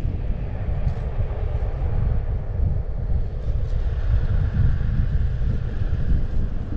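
Wind rushing over the camera microphone on a moving rider, a steady low rumble with the roll of wheels on asphalt underneath.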